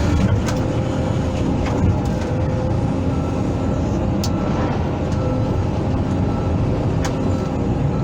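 Hydraulic excavator's diesel engine running steadily under work, with a few brief faint clicks.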